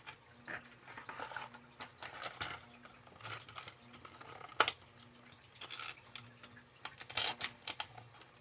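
Irregular small clicks and rattles of a hard plastic topwater fishing lure being handled, its treble hooks and internal rattle ticking, with one sharper click about halfway through.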